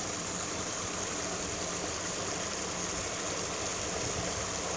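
Steady rush of water from a small cascade on a stream.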